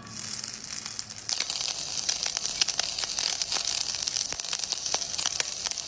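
A sushi roll sizzling in a hot cast-iron skillet: a steady hiss full of small crackles and pops, growing louder about a second in.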